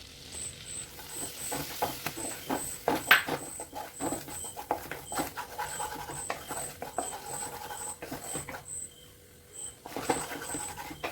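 Spoon or spatula stirring flour into melted butter in a pan, scraping and knocking in quick, uneven strokes, with a short pause near the end: a roux for white sauce being cooked.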